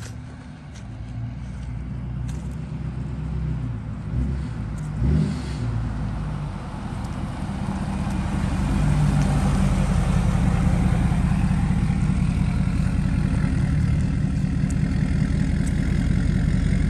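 Lifted Ford Super Duty pickup's Powerstroke diesel engine running as the truck drives slowly up and past. It grows louder over the first half and then holds a steady, close, low beat.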